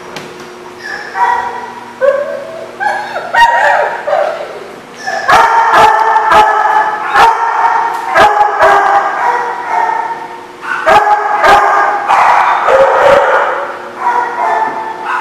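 Dogs barking and yipping in play, densest and loudest from about five seconds in until about thirteen.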